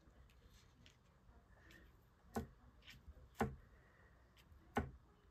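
Three sharp taps or clicks of small hard craft tools or pieces being handled and set down on a work table, about a second apart, over quiet room tone.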